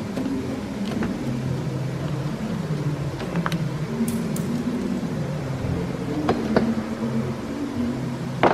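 Sharp clicks and knocks of plastic under-tray fasteners being undone with a screwdriver and the tray being handled, a few times over a steady low hum.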